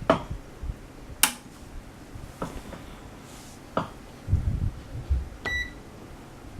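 A few sharp clicks of switches and handling on an opened tube amp chassis during power-up for a bias check, the loudest a little over a second in, with some low thumps later. About five and a half seconds in, a digital multimeter reading the bias probe gives one short high beep.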